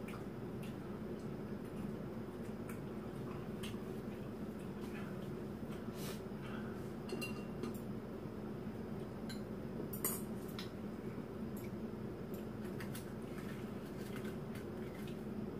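Chopsticks and a spoon clinking against bowls and the hot-pot pan in scattered light clicks, over a steady low hum.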